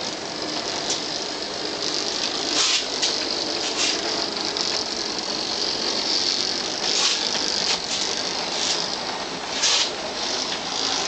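O-scale 44-tonner model locomotive running under its own battery power, a steady whirr of its gear drive and wheels on the track with irregular sharp clicks.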